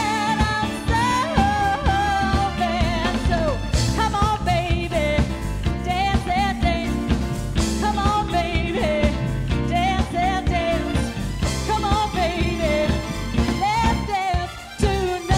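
Live band playing: drum kit, bass guitar, electric guitar and keyboards, with a woman singing the lead. The band drops out briefly near the end, then comes back on a held note.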